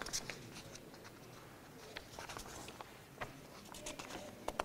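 Sheets of printed paper rustling faintly in short, scattered crackles as they are turned and shuffled by hand.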